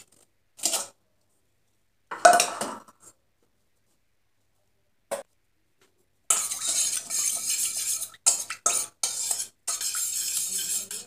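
A spoon stirring and scraping around a stainless steel bowl of wet spice marinade. A few short, separate clinks come first; from about six seconds in the stirring runs on steadily with metal scraping against metal.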